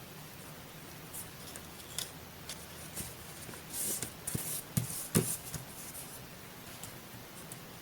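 Scissors cutting paper at close range: a few scattered clicks, then a cluster of short rasping snips and sharp blade clicks between about four and five and a half seconds in.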